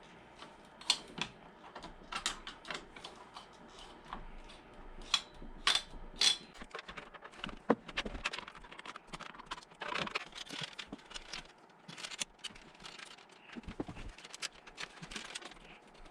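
Irregular clicks, taps and light rattles of computer hardware being handled and fitted during a PC build, with a few sharper clicks standing out.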